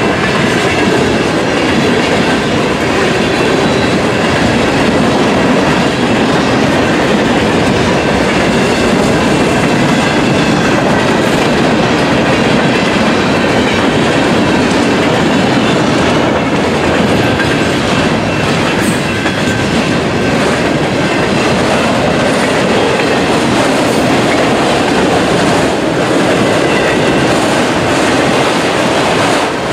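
Freight train cars rolling steadily past on the track, steel wheels on the rails.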